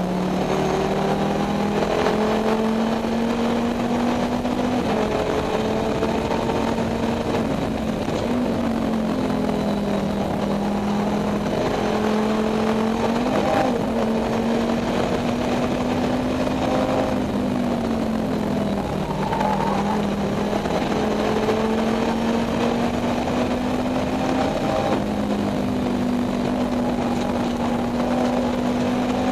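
Volvo S60 Challenge race car's five-cylinder engine at racing speed, heard from inside the stripped cockpit. The engine note climbs through the revs and drops or dips several times with gear changes and lifts for corners, over constant road and wind noise.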